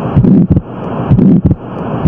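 Recorded heart sounds: a repeating heartbeat about once a second, each beat a short loud thump, with a hissing murmur that swells in the gaps between beats.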